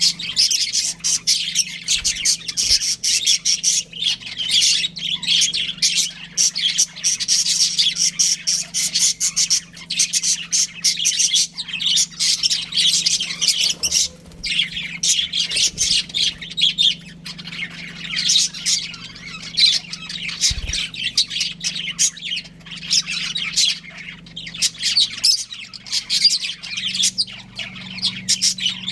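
Budgerigars chirping, chattering and squawking continuously, with short breaks. A steady low hum runs underneath.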